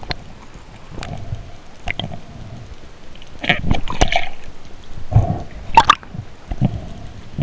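Water sloshing, gurgling and dripping around a spearfisher's action camera, with irregular sharp clicks and a few louder gurgling bursts about halfway through and again a little later.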